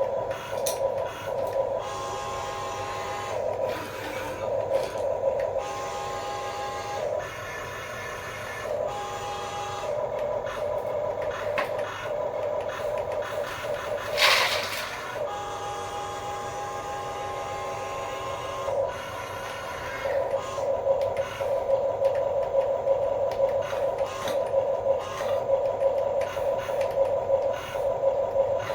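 Small electric motors and plastic gearboxes of RC construction toys whining as they run in spurts, stopping and starting several times, with a brief scraping burst about halfway through.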